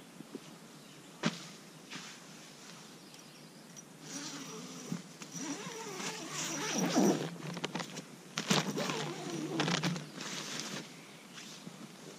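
A tent door zipper being opened, with the nylon tent fabric rustling as someone moves inside and pushes the door flap open, mostly in the second half.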